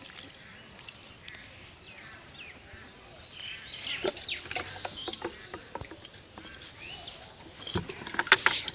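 Birds chirping in quick short calls, busier from about halfway through, among scattered sharp clicks and knocks that are loudest near the end.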